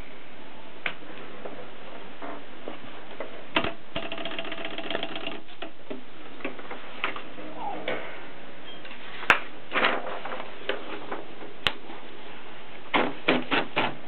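Mechanism of a Continental portable typewriter being handled, heard over a steady hiss. Scattered sharp clicks and a few short runs of rapid ratchet-like rattling are followed, near the end, by a quick cluster of clicks as paper is fed in.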